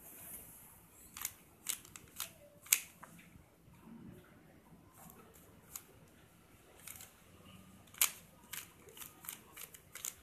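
Plastic 3x3 puzzle cube being turned by hand: sharp clicks and clacks of the layers snapping round. A run of quick clicks comes about a second in, then scattered softer turns, then another quick run near the end.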